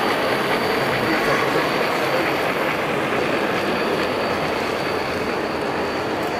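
Model steam locomotive and its carriages running along the layout track, a steady rolling train noise without a clear beat.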